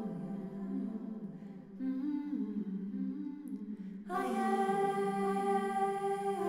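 Soundtrack music of humming and singing voices holding long, sustained notes in harmony, swelling louder and fuller about four seconds in.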